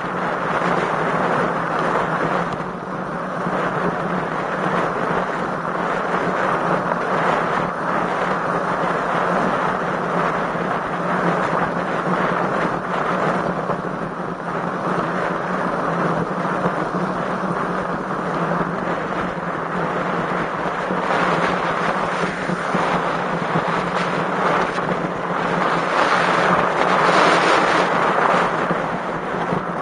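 Strong wind rushing over the microphone of a road bike's onboard camera while riding, with a steady low hum underneath; it swells louder near the end.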